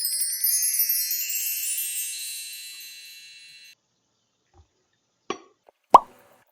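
A shimmering cascade of high, bright chime tones that fades away over about three and a half seconds and then stops abruptly. Near the end come two short sharp knocks, the second louder.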